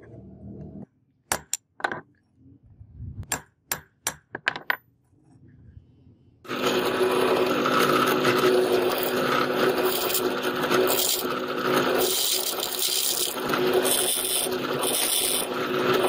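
About nine sharp metal-on-metal taps on a steel punch held against a steel knife blank, marking hole positions. Then, about six seconds in, an electric drill starts and runs steadily, its bit boring through the steel blank.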